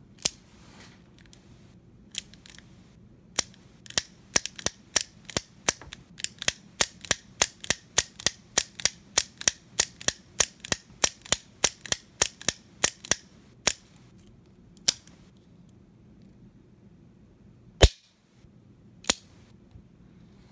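Smith & Wesson Model 36 Chief's Special snub-nose revolver's action being worked, hammer cocked and released: a quick run of sharp metallic clicks, about three a second, for some ten seconds, then a few single clicks, the loudest near the end. The action is tight.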